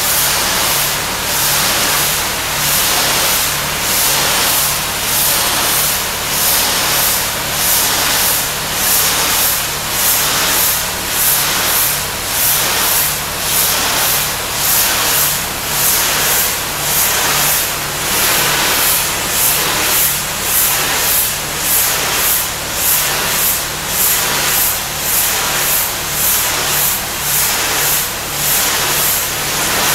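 Pressure washer running: a steady engine hum under the loud hiss of the high-pressure water spray, which swells and fades a little more than once a second.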